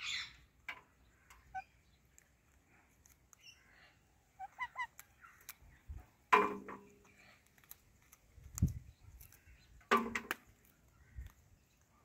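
Indian ringneck parrots calling: soft chirps, then two loud, harsh calls about six and ten seconds in, with scattered small clicks and a low thump between them.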